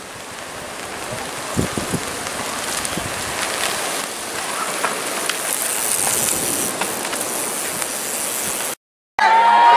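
Downhill mountain bike coming down a dirt trail: tyres crunching and sliding over dirt and dead leaves, with rattling clicks from the chain and frame, getting louder as it approaches.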